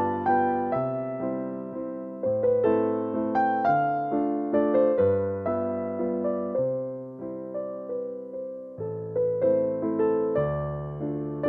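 Background piano music: each note struck and fading, a melody over low held notes.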